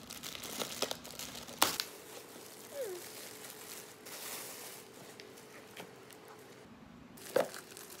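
Clear plastic wrapping crinkling as it is pulled off a new humidifier, with two sharp knocks, one about one and a half seconds in and a louder one near the end.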